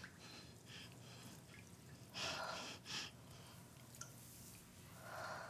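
Faint water sloshing and dripping as a girl's hair is washed, a little louder twice, about two and three seconds in.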